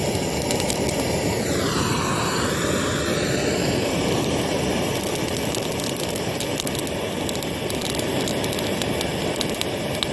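Handheld butane gas torch firing a steady, rushing jet of flame into a pile of dry twigs to light a campfire. Its whoosh dips in pitch and comes back up about two seconds in.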